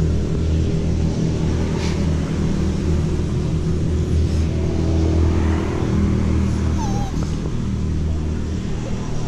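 A steady low motor hum runs throughout. A puppy gives one short whine about seven seconds in.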